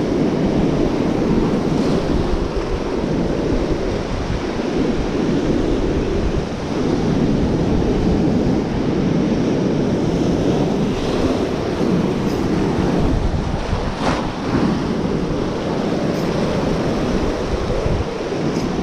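Sea surf breaking and washing over rocks, a steady rush of water noise, with wind buffeting the microphone.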